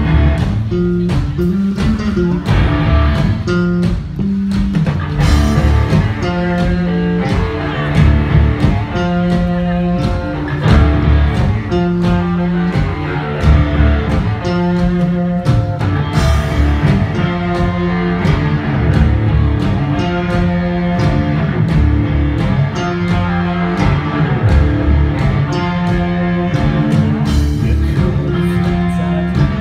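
Live band playing an instrumental passage led by guitars, amplified through an open-air stage PA.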